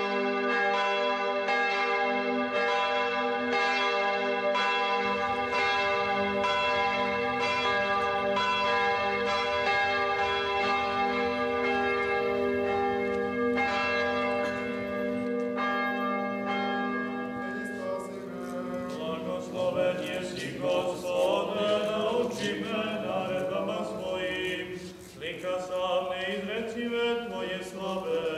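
Church bells ringing, struck again about once a second, with long overlapping tones. About two-thirds of the way through, the bells give way to voices singing a slow chant.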